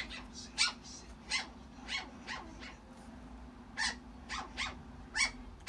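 A young Chihuahua puppy whining in short, high-pitched cries, about nine of them with uneven gaps.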